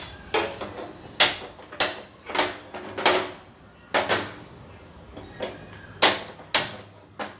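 Kitchen clatter: about a dozen sharp knocks and clicks at uneven intervals, some with a short ring, as a pot of water is put on the stove to boil.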